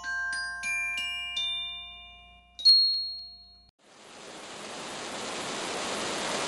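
A short jingle of bell-like chime notes struck one after another, each ringing and fading, with the loudest, highest note about two and a half seconds in. After a cut, just under four seconds in, a steady rush of fountain water takes over and swells.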